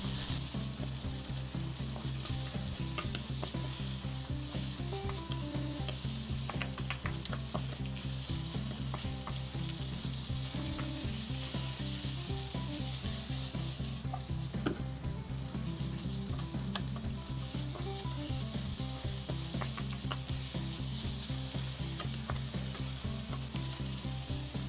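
Sliced sausages, onion, tomato and bell peppers sizzling as they are stir-fried in a nonstick pan, with a wooden spatula scraping and tapping against the pan now and then. A steady low hum runs underneath.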